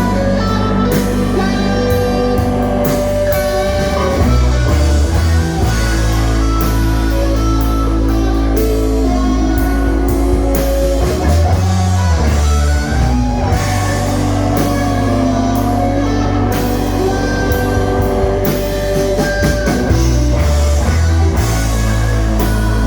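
Rock band playing: electric guitar lines over a heavy bass line and drum kit, with the bass changing notes every few seconds.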